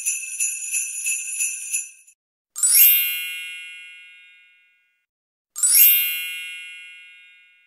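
Jingle bells shaken in a quick rhythm, stopping about two seconds in. Then two twinkling chime sound effects about three seconds apart, each a fast upward sweep into bright ringing tones that fade away over about two seconds.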